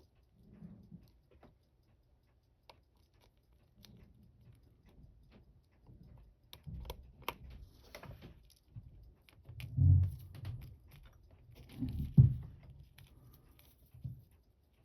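Small scattered clicks and taps of watchmaker's tools and small watch parts being handled on a bench, with two louder bumps about ten and twelve seconds in.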